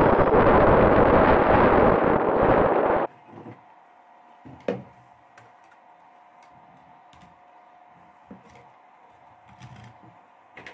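Loud rushing noise on the bow camera of an RC boat under way, cutting off abruptly about three seconds in. Then, over a faint steady hum, scattered clicks and taps of small metal winch parts and a steel rod being handled on a workbench, with one sharper knock about a second and a half after the cut.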